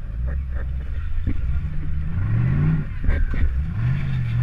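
Demolition derby car's engine, heard from inside the car, revving up and falling back twice over a constant low rumble, with a few sharp knocks, the loudest cluster about three seconds in.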